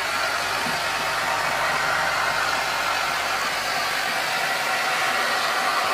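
Steady hiss of air being pumped into a mild hyperbaric chamber as it pressurises toward about 1.4 atmospheres, with a faint low hum underneath.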